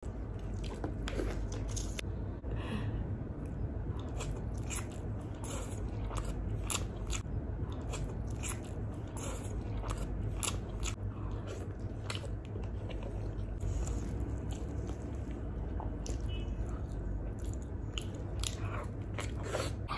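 Close-up eating sounds of a person biting and chewing grilled chicken and flatbread, with many irregular wet mouth clicks and smacks.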